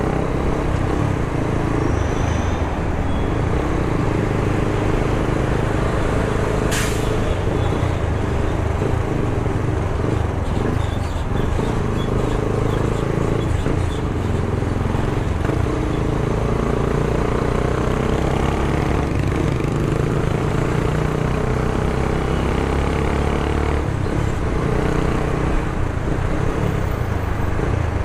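Sport motorcycle engine running steadily while riding in slow city traffic, under a continuous rush of road noise. A single sharp click about seven seconds in.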